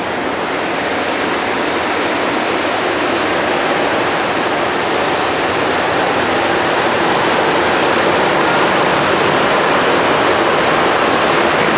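Montreal metro MR-73 rubber-tyred subway car running through the tunnel, heard from inside the car: a steady rushing noise that slowly grows louder.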